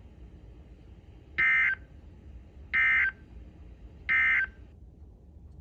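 Emergency Alert System end-of-message code: three short, identical warbling data bursts about 1.4 s apart (the SAME "NNNN" tones), signalling that the severe thunderstorm warning broadcast has ended.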